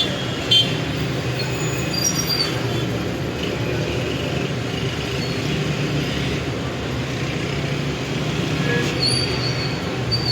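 City street traffic: a steady rumble of vehicle engines and tyres, with a short sharp knock about half a second in.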